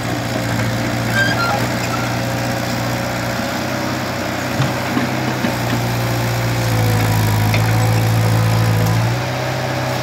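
Diesel engine of a Kobelco SK03 crawler excavator running steadily as the machine digs, getting heavier and louder for about two seconds in the second half.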